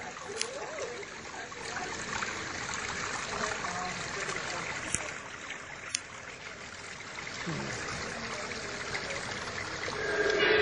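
Water trickling and splashing down a small artificial rock waterfall on a garden railway layout. A louder sound with steady tones builds near the end.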